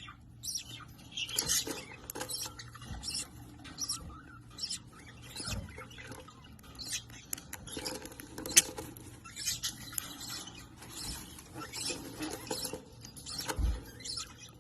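Small birds chirping and twittering: many short, high, squeaky calls overlapping at an uneven pace, with a couple of soft low thumps.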